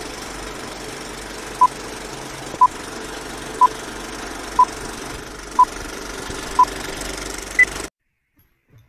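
Old film countdown-leader sound effect: a steady whirring, rattling projector noise with a short beep every second, six at one pitch and then a seventh higher beep. It cuts off suddenly about eight seconds in.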